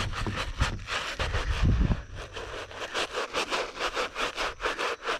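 A stiff-bristled hand scrub brush scrubbing a wet, soapy canvas sneaker in quick back-and-forth strokes, about four a second. Low thumps and handling in the first two seconds.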